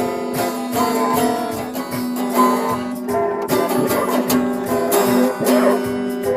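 Acoustic guitar music, chords strummed and picked in a steady rhythm.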